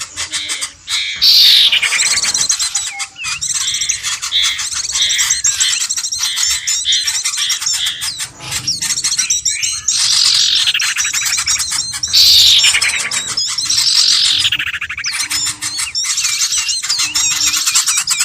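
Bird-lure recording of small birds calling: dense, high-pitched chirping and squawking, broken by several loud falling trills.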